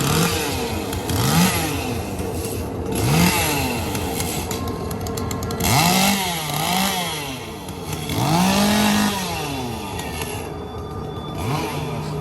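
Gas chainsaw revving again and again, its engine pitch climbing and dropping every second or two, then held high for about a second near the end, over a steady hum.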